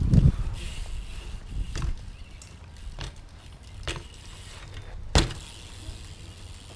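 BMX bike riding on a concrete skatepark: a low rumble of tyres rolling right past the camera mic at first, then four sharp knocks and clacks of the bike on the concrete, the loudest about five seconds in.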